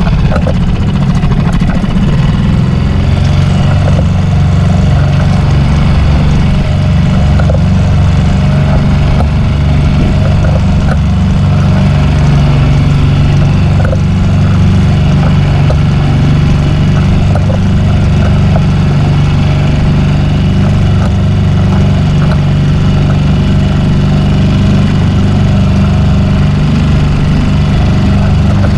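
Small sailboat's engine running steadily under way, an even low hum with no change in speed.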